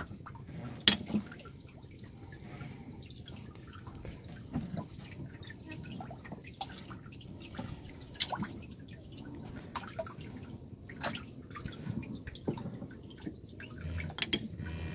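Irregular drips and small splashes of water in a boat's flooded fish hold, where live hilsa are swimming, with a sharper splash about a second in.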